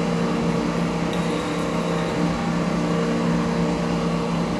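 Vertical lathe running, its table turning a clamped stack of steel plates: a steady machine hum with a constant whine.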